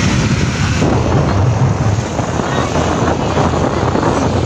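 Wind buffeting the microphone of a phone filming from a moving vehicle at road speed, a loud steady rush heavy in the low end, with vehicle and road noise mixed in.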